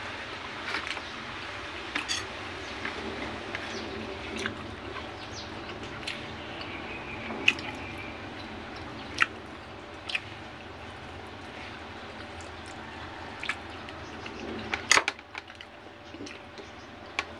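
Eating by hand: wet lip smacks and mouth clicks every second or two as fingerfuls of salted dried fish and rice are chewed, over steady background noise.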